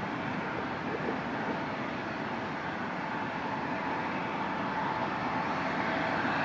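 Steady distant roar of a Boeing 737-800's CFM56 jet engines during its landing rollout, with a faint whine that comes in and a slight rise in loudness in the second half.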